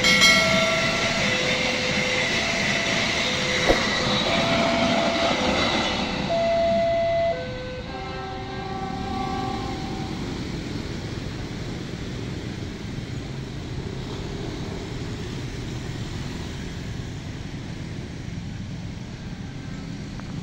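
Passenger train running past at speed: a loud, steady rumble with short alternating tones over it, which drops off suddenly about seven and a half seconds in. A quieter, steady rail rumble follows for the rest.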